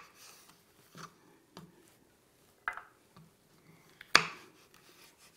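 Kitchen knife slicing pitted green olives in half on a wooden cutting board: a few scattered sharp taps as the blade goes through and meets the board, the loudest about four seconds in.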